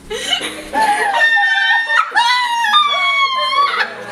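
Two long, high-pitched squealing cries from a person, the second rising and then falling.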